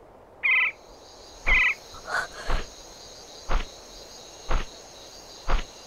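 Night forest ambience: insects chirring steadily at a high pitch, with two short frog calls in the first two seconds. Then heavy footsteps land slowly, about one a second.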